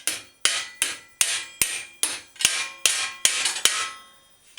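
Hammer striking a two-piece rapid rivet in a Schwinn steel bicycle fender, about ten quick metallic blows at a steady pace, each ringing briefly. The blows stop about four seconds in.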